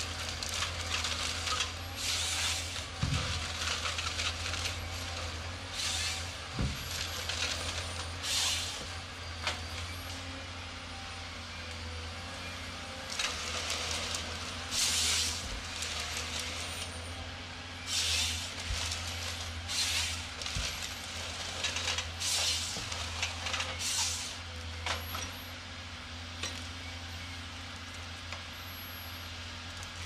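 A machine hums steadily, with repeated short bursts of hissing, a second or less each, coming at irregular gaps of one to a few seconds.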